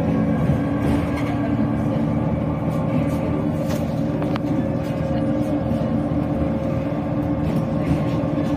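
Inside a NefAZ 5299 city bus under way: the Cummins ISBe six-cylinder diesel drones steadily over road noise, with a couple of light rattles about four seconds in.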